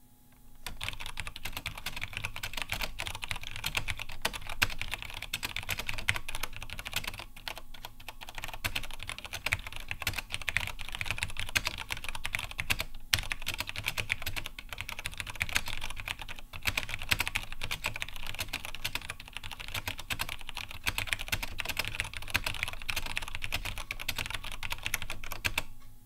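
Continuous fast typing on a Cherry G80 mechanical keyboard with tactile Cherry MX Clear switches: a dense, unbroken run of key clicks that starts about a second in.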